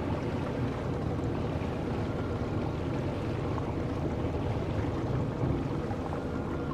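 Motor launch under way: its engine runs steadily beneath the rush of water along the hull.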